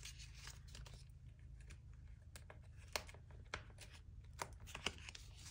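Faint handling of paper cash and envelopes: scattered light clicks and rustles as bills are put away.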